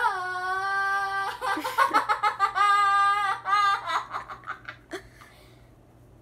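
A girl's high voice holding a long, loud note, a few short syllables, then a second held note, breaking into laughter near the middle before dying away.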